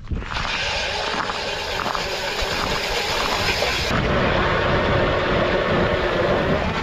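Electric ice auger drilling a hole through lake ice: a steady motor run with the bit grinding through the ice, the sound shifting about four seconds in.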